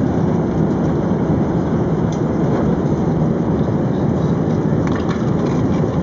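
Steady, deep rushing cabin noise of an Airbus A380 in flight, from airflow and the engines.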